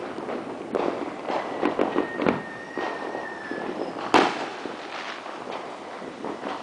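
Fireworks going off: a run of sharp crackling pops with a thin high whistle over them, then one loud bang about four seconds in, followed by a few fainter pops.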